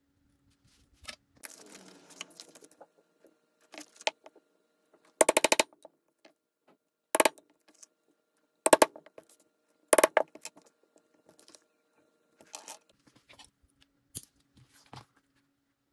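Hammer blows on metal leatherworking tools on a bench: a quick run of about six sharp taps about five seconds in, then three single hard blows, with lighter clicks and handling between them.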